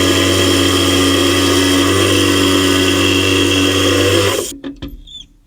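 A steady mechanical running sound with a low hum and several held tones, cutting off suddenly about four and a half seconds in, followed by a few faint clicks.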